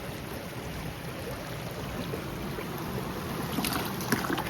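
Steady rushing of creek water, with a few faint clicks and rustles near the end.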